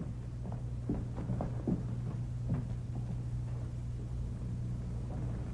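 A few faint, soft footsteps in the first three seconds as someone walks out of the room, over a steady low hum from the old soundtrack.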